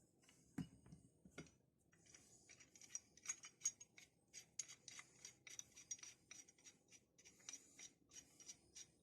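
Faint metallic clicking and scraping as the adjusting nut of a restored Ridgid pipe wrench is wound, sliding the hook jaw in and out, with quick irregular ticks that grow busier about two seconds in. The wrenches have had no lubrication and wind freely.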